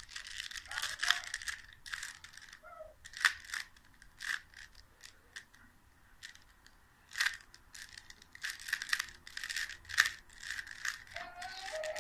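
Plastic 3x3 Rubik's cube being turned by hand: quick runs of clicking and rattling as the layers twist, with a pause of a second or two near the middle.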